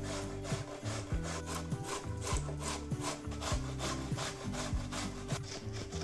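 Boiled carrots grated on a stainless steel box grater: quick, regular scraping strokes, about four a second.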